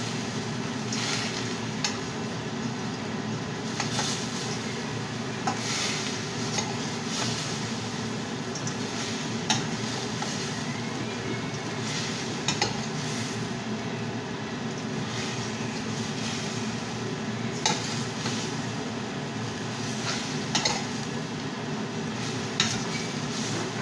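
Chow mein noodles sizzling in a stainless steel frying pan while being stirred and tossed, with the utensil clicking and scraping against the pan now and then.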